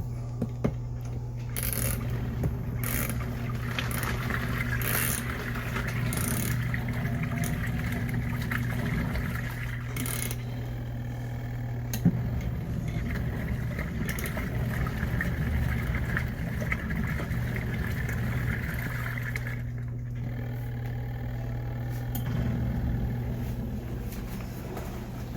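COSTWAY portable mini washing machine running: a steady motor hum with water churning in the tub, and a few clicks.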